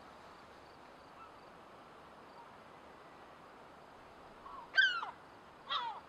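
Juvenile gull giving two short, whining calls that slide downward in pitch, about a second apart near the end, over a faint steady hiss.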